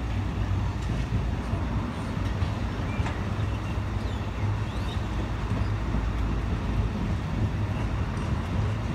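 Hopper wagons of a Class 66-hauled freight train rolling past at low speed, a steady low rumble of wheels on rail.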